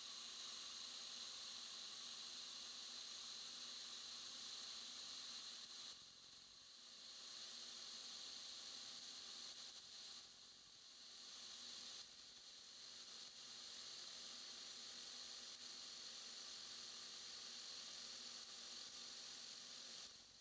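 Steady hiss of compressed air from a Noga Mini Cool nozzle blowing chips off an end mill as it cuts a slot on a Bridgeport milling machine, with a few brief high-pitched squeaks from the cut every few seconds.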